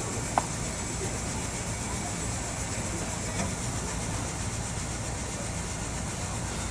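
Steady stadium background noise, a low even hum and hiss with no distinct events, with a single faint tick about half a second in.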